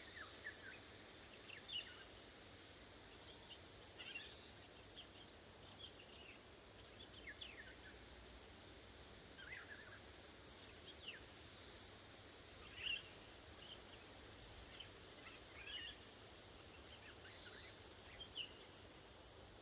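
Woodland birds calling: many short chirps and squeaks, scattered irregularly, over a faint steady background of wind and hiss.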